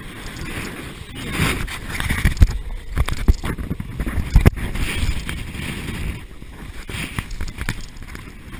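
Water rushing and sloshing around a Westsail 32 sailboat in rough seas, swelling and easing, with wind on the microphone. Several heavy knocks come between about two and four and a half seconds in.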